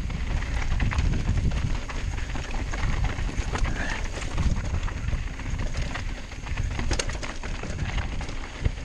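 Mountain bike rolling fast down a rocky trail: tyres crunching and knocking over loose rock, with the bike rattling at each hit and one sharper knock about seven seconds in. Low wind rumble runs under it on the chin-mounted camera's microphone.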